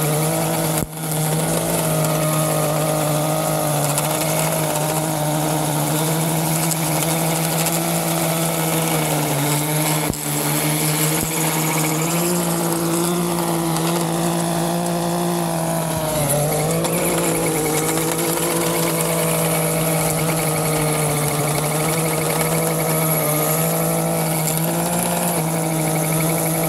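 A gas-powered lawn tool's small engine running steadily at high speed as it cuts out grass growing in pavement cracks. Its pitch dips briefly about two-thirds of the way through, then recovers.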